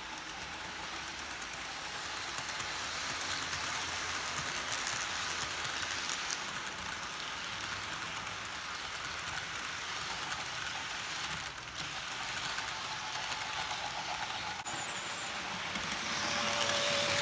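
Model freight train rolling along the layout's track: a steady rattle of metal wheels on the rails and the locomotive's motor running. It grows louder a couple of seconds in and again near the end.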